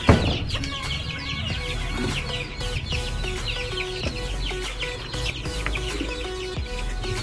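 A crowd of domestic chicks peeping without pause, a fast chorus of short high falling peeps. One sharp knock sounds right at the start.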